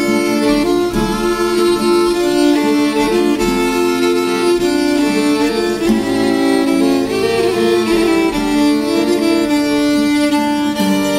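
Instrumental background music with a fiddle carrying the melody.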